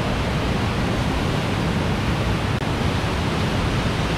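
Loud, steady rush of water pouring over a dam in monsoon flood.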